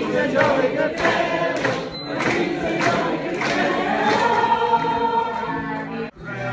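A roomful of party guests singing together, many voices at once, breaking off suddenly shortly before the end.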